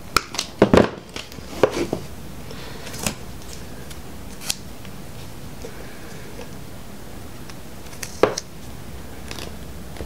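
Wire cutters snipping through wires on an LS engine wiring harness: a quick run of sharp snips in the first two seconds, then a few single clicks as the cut wires are handled, and another sharp snip near the end.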